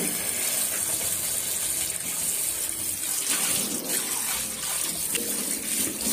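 Kitchen tap running steadily into a stainless steel sink, the stream splashing into a coffee maker's plastic filter cup as it is rinsed of grounds by hand.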